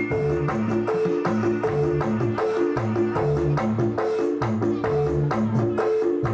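Jaranan music: a short melodic phrase of held pitched notes cycling over and over, over a steady beat of percussion strikes.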